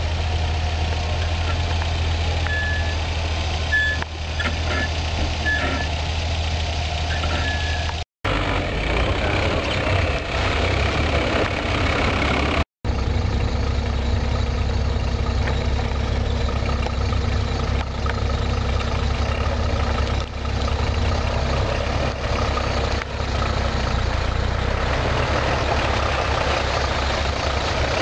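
Off-road 4x4's engine running steadily at low revs. The sound cuts out completely for a moment twice, about a third of the way in and again a few seconds later.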